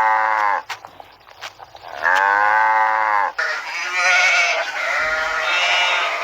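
Livestock bleating: a long bleat ends just under a second in, a second long bleat starts about two seconds in and lasts over a second, then a run of shorter, higher-pitched bleats follows.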